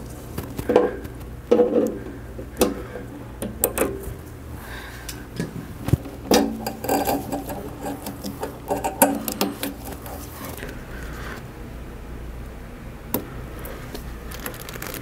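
Pliers and gloved hands working the fuel hoses and fuel-pump connector under a Suzuki GSX-R600's propped-up fuel tank: irregular clicks, knocks and rubbing of plastic and metal. They come thickly for about ten seconds, then thin out to a single click later on.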